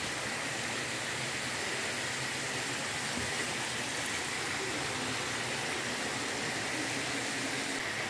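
Steady rush of a small waterfall and the stream flowing under a footbridge.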